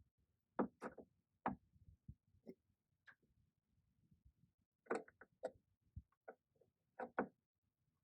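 Irregular faint clicks and light knocks from work on a Jeep Wrangler TJ door panel: a ratchet with a Torx bit and the plastic panel being handled, with a small cluster of clicks about five seconds in and a close pair near the end.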